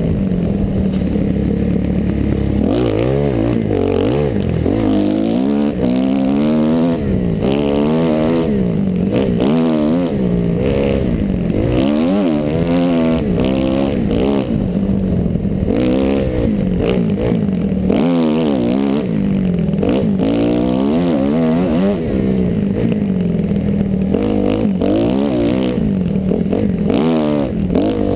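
Kawasaki KX dirt bike engine revving hard and easing off again and again as the rider works the throttle through the trail's turns and bumps, heard from a helmet-mounted camera.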